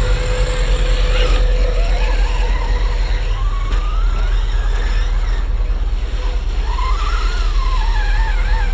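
Electric RC stadium truck's motor whining, its pitch rising and falling as the throttle is worked around the dirt track, over a steady low rumble.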